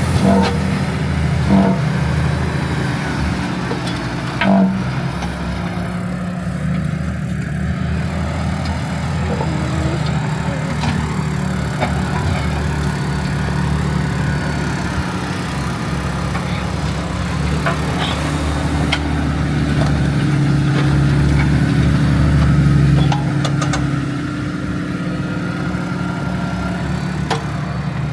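Tractor engine running steadily while pulling a subsoiler through the field, with a few short knocks in the first seconds. The engine grows louder for a few seconds past the middle, then drops back suddenly.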